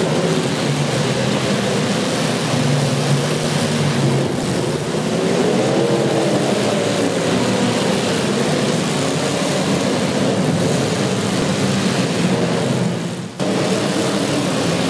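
Demolition derby cars' engines running loud and revving, their pitch rising and falling, with a short drop-out about thirteen seconds in.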